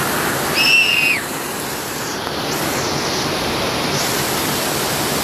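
Waterfall in spate after heavy rain, muddy water rushing steadily over rocks. About a second in, a brief high whistle-like call sounds over the water.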